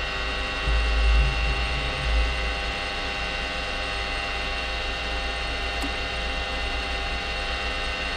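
Metal lathe running steadily, its geared headstock giving an even whine of many tones, with a few low knocks about a second and two seconds in.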